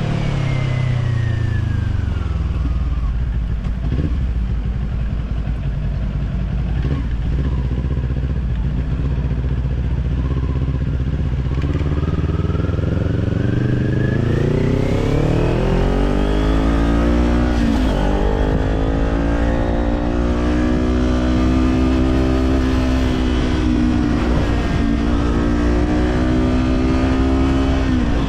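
Kawasaki Z400 399 cc parallel-twin engine through an Orion Katya aftermarket slip-on exhaust, under way on the road: the note falls in pitch over the first few seconds as the bike slows, holds low, then climbs steadily as it accelerates, with a quick gear change about two-thirds in before settling into an even cruise. Wind rushes over the microphone underneath.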